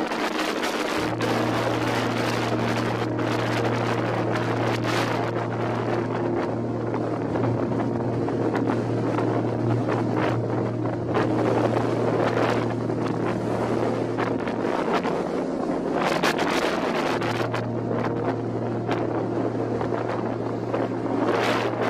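Strong gale wind buffeting the microphone over storm waves breaking against a sea wall, with several louder surges. A steady low hum runs underneath.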